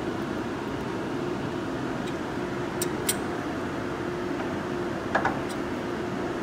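Steel chuck key working the jaw screws of a lathe's four-jaw chuck: two light metallic clicks about three seconds in, and a sharper, briefly ringing clink about five seconds in, over a steady background hum.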